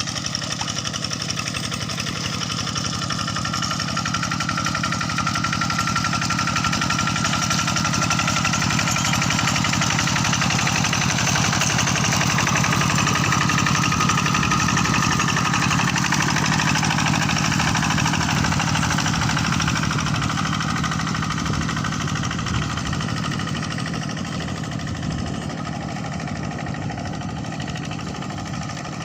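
Kubota RD85 single-cylinder diesel engine of a TL800 walk-behind tractor running steadily, growing louder over the first several seconds and fading again toward the end.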